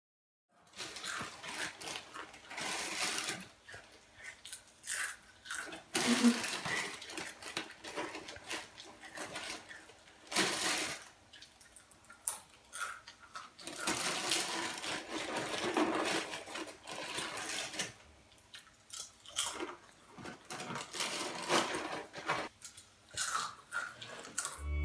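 Loud chewing: an irregular run of noisy mouth sounds in bursts, with short pauses between them.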